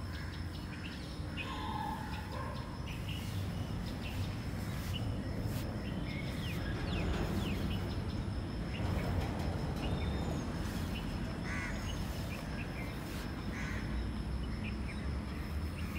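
Outdoor ambience: a steady low background noise with scattered faint bird chirps and a thin steady high-pitched tone.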